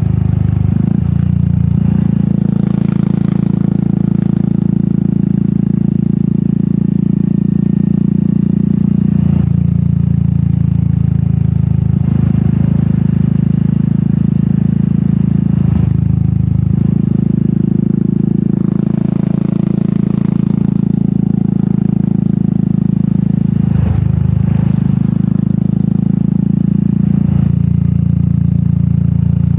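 Royal Enfield Meteor 350's single-cylinder engine running through an aftermarket sport exhaust while riding. The exhaust note is steady, with short breaks about a second in and again at about 9, 16, 24 and 27 seconds, where the throttle comes off and the engine picks up again.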